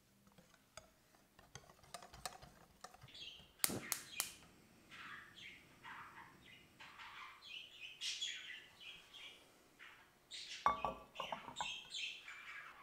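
Small birds chirping and twittering over and over. About four seconds in there are three sharp clicks, fitting a gas hob's igniter being sparked, and there is a short metallic clatter near eleven seconds as a frying pan is set on the burner's cast-iron grate.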